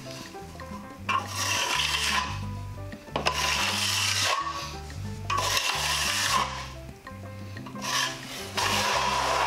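Steel finishing trowel scraping compound across a plaster wall in about five long rasping strokes, laying down and smoothing a skim coat. Background music with a steady bass line plays under it.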